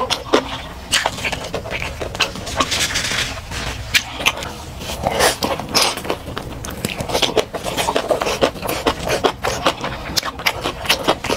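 Close-miked biting and chewing of a stuffed shaobing flatbread: a dense, irregular run of crunches and wet mouth clicks.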